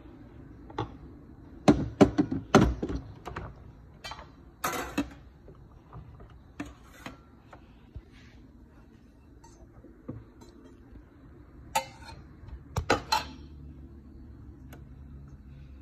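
A glass cup and a stainless steel milk jug being handled and set down on a stone countertop and an espresso machine's metal drip tray: irregular clinks and knocks, most of them in a cluster about two seconds in and again about thirteen seconds in, over a low steady hum.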